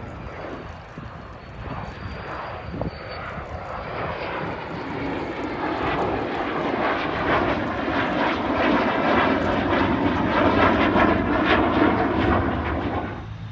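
Airplane engine noise growing steadily louder as the aircraft approaches, then cutting off abruptly near the end.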